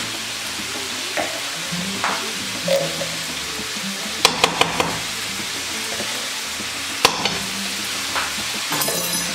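Minced meat and chard sizzling steadily in a frying pan, with a quick run of sharp clicks about four seconds in, another click near seven seconds and a brief metallic rattle near the end as a spoon and a tin of tomato paste are handled over the pan.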